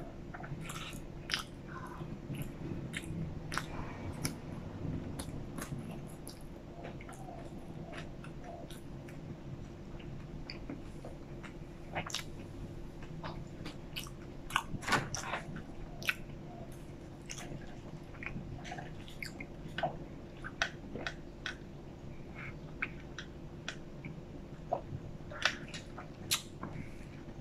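Close-miked chewing of french fries, with many short wet mouth clicks and smacks. A low steady hum sits underneath.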